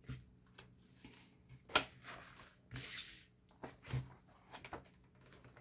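A large paperback colouring book being handled and its pages turned: a few short knocks and paper rustles, the clearest about two and four seconds in.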